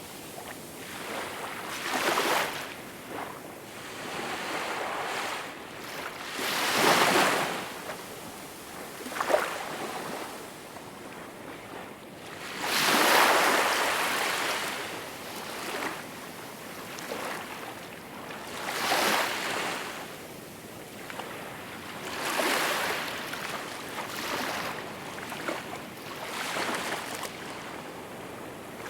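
Small waves washing onto a shore. Each swell rises and falls every few seconds, and there is a short sharp splash about nine seconds in.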